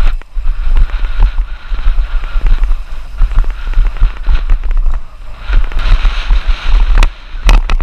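Wind buffeting the microphone during a fast downhill run on a dirt-jump hardtail, with a steady low rumble of the slick tyres rolling over the dirt trail. A few sharp knocks near the end as the bike hits bumps.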